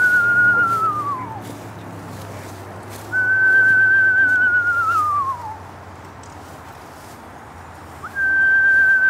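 A person whistling an imitation of a screech owl's call: long pure whistles held on one high pitch, then sliding down with a slight waver. The first is already under way and falls away about a second in, another comes about three seconds in, and a third starts near the end.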